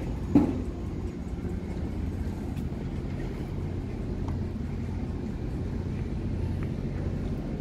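Steady low mechanical hum, like a running engine or machinery, with one sharp knock about half a second in.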